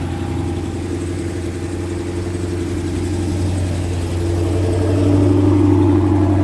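2014 Dodge Charger SRT8's 6.4-litre HEMI V8 with a Corsa exhaust, running at low revs with a steady deep drone. It gets a little louder about four to five seconds in.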